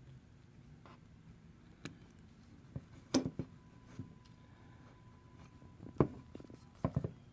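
Scattered sharp clicks and taps of thin wire and small hand tools such as pliers and wire cutters being handled, about half a dozen in all. The loudest come just past three seconds and at six seconds.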